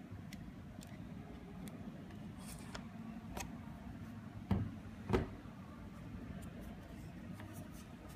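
Lens mount adapter being handled on a camera: light metallic clicks, then two louder knocks about half a second apart near the middle, over a steady low hum.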